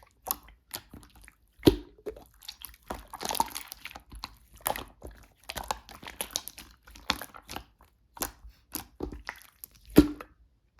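Slime being squished and pressed by hand, giving irregular sticky clicks and small air pops, with a denser crackling stretch about three seconds in and a louder pop near the end.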